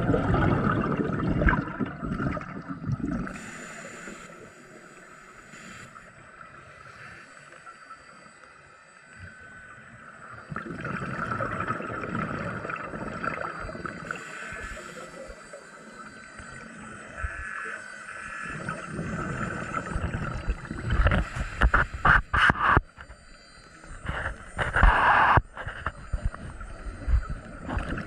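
Underwater sound heard through a camera housing: a diver's exhaled air gurgling and bubbling in long surges that rise and fade. A run of sharp clicks and knocks comes about three quarters of the way in.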